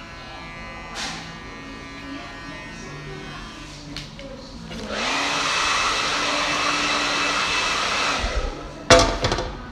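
Handheld hair dryer blowing steadily for about three seconds, switched on about five seconds in and cut off, after a faint steady buzz of electric hair clippers. Near the end, a few sharp knocks.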